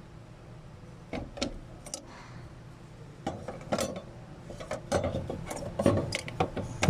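Scattered light metallic clicks and knocks of hand tools and car parts being handled, coming more often in the second half.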